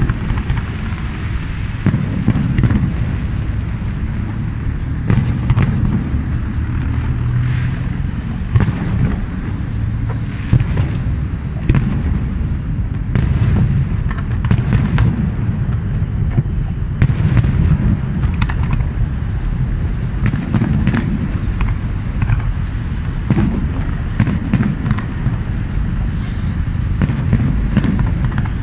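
Aerial firework shells bursting one after another in a continuous barrage. Frequent deep booms and sharp cracks come over a steady low rumble.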